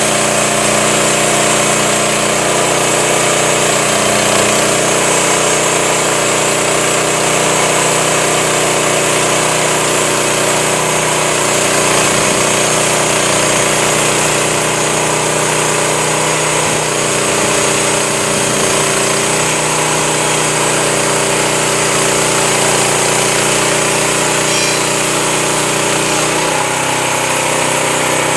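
Engine of a home-built Crosswood Model 28 band sawmill running steadily. Its note shifts about two seconds before the end.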